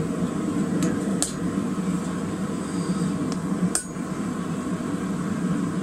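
Hand hammer striking a centre punch on red-hot rebar on an anvil, punching the eyes into a forged snake head: a few separate sharp metallic strikes over a steady low roar.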